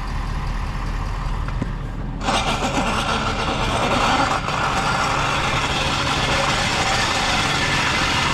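Truck engine running at idle with a steady low rumble; about two seconds in, a loud, even rushing noise starts suddenly and holds.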